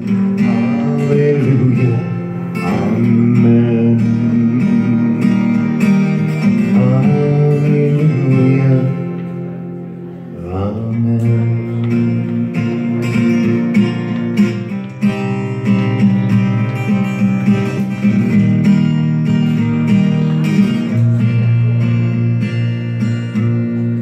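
Acoustic guitar strummed alone, chords ringing without singing, dipping briefly about ten seconds in before picking up again.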